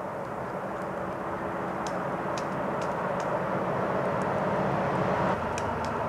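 Engine rumble of a passing vehicle, growing steadily louder for about five seconds and then dropping off, with a few faint sharp taps scattered through it.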